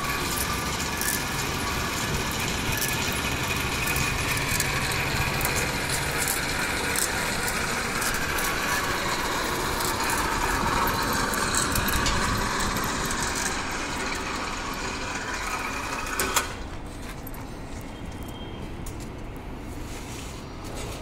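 The electric motor and wire-rope winch drum of a monkey lift hoist run steadily, hauling a load up. About sixteen seconds in they stop with a short knock, leaving quieter background noise.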